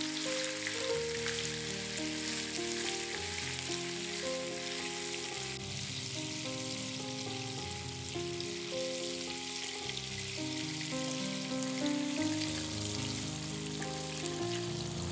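Shrimp sizzling and crackling as they fry in hot oil in a frying pan, a dense steady hiss, over soft background music. The shrimp are in a brief first fry, not cooked through, because they will be cooked again in the sauce.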